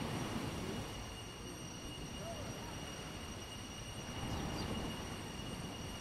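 Beach ambience: a steady low rumble of small waves and breeze, swelling briefly just after the start and again about four seconds in.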